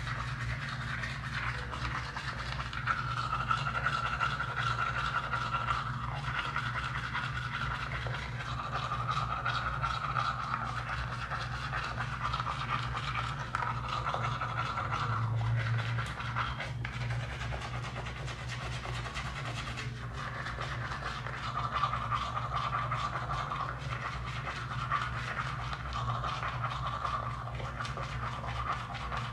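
Toothbrush bristles scrubbing back and forth in a continuous run of rapid strokes, over a steady low hum.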